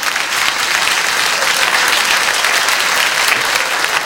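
Live theatre audience applauding: dense, steady clapping.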